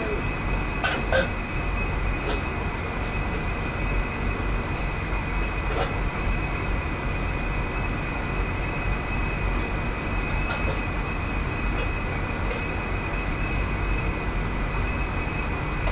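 Steady roar of commercial kitchen ventilation and machinery, with a thin high whine running through it. Light clinks of utensils or dishes come about a second in, around the middle and again a little later.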